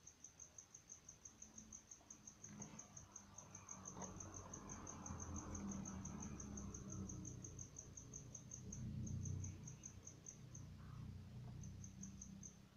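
A cricket chirping in a fast, even train of high pulses, about seven a second, which pauses about ten and a half seconds in and resumes briefly near the end. A faint low rumble runs underneath.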